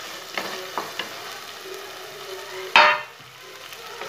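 Chopped onions, tomatoes and green chillies sizzling in hot oil in a pressure cooker pan while a wooden spatula stirs them. A few light knocks come in the first second, and one loud, brief scrape comes near three seconds in.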